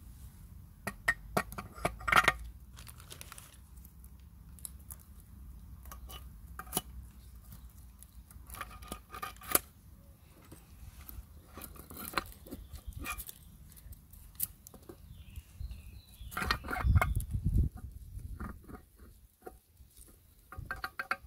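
Metal tools and parts clinking and knocking in irregular clusters, with short ringing clinks, over a low steady hum.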